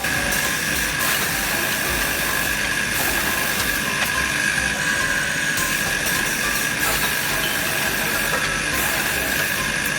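SMJS-2T two-head automatic wood drilling machine running, a steady high whine over constant machine noise.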